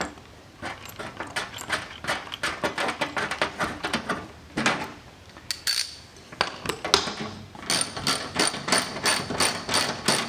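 Metal clicks and knocks of small hardware being handled and fitted, then a hand ratchet clicking evenly, about three to four clicks a second, as a corner screw with its washers is run down into the fuel cell lid.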